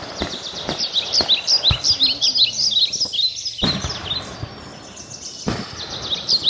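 Backyard songbirds chirping: many short, quick high chirps, thick at first, easing off in the middle and picking up again near the end, with a few sharp knocks in between.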